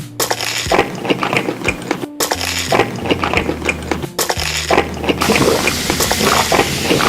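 Close-up eating noises: a dense run of small clicks and clinks from utensils, dishes and food. They play over background music with held bass notes that change pitch every second or so.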